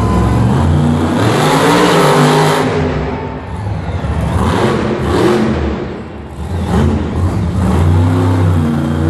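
Monster truck's supercharged V8 engine revving hard as the truck drives off, the revs swelling and falling in waves: two big rises in the first half, a brief drop about six seconds in, then building again.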